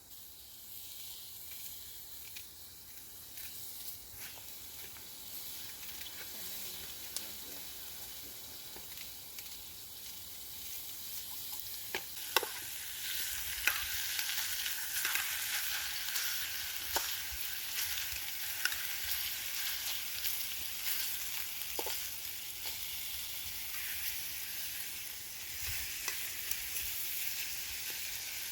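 Food frying and sizzling over a campfire, a steady high hiss with sharp pops now and then, growing louder about twelve seconds in.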